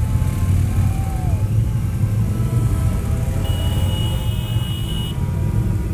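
Harley-Davidson touring motorcycle's V-twin engine running steadily at low road speed, heard from the saddle as a deep rumble mixed with wind on the microphone.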